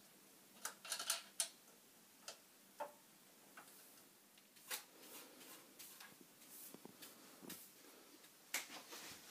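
Faint, irregular clicks and taps of metal angle brackets and screws being handled and fitted onto a wooden go-kart frame.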